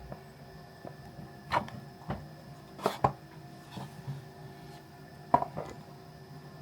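Light knocks and taps of an iPhone box and its packaging being handled, a handful of separate impacts with two quick pairs, one about three seconds in and one near the end.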